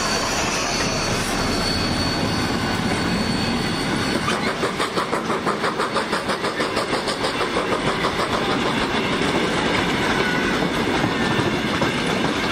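Heritage railway carriages rolling past, with the continuous rumble of their wheels on the rails. For a few seconds midway the wheels click over rail joints in a quick, even rhythm, about four clicks a second.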